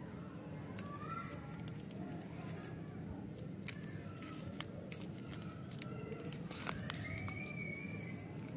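Candy wrapper, printed plastic over a foil inner layer, crinkling and crackling in quick irregular clicks and rustles as fingers peel it open from a chewy lollipop.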